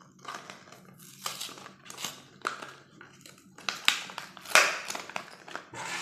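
Stiff plastic blister packaging crinkling and crackling in irregular bursts as a combination padlock is worked out of it, with the loudest crackles about two-thirds of the way through.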